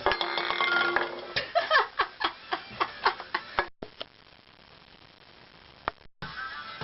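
Soundtrack song in a break: a short dense electronic note, then a run of sharp clicks like typewriter keys, about three a second, giving way to a hushed pause with a single click before the music comes back.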